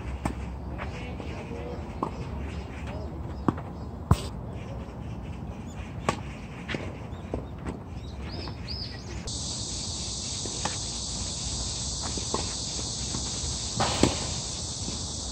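Tennis balls struck by rackets, a few sharp pops spaced seconds apart, the loudest near the end. From a little past halfway, a steady high insect buzz sets in suddenly and carries on under the hits.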